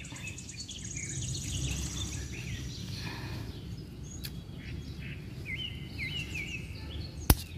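Small birds chirping in short repeated calls over a low steady outdoor rumble, with a fast high-pitched trill in the first two seconds. One sharp click comes near the end.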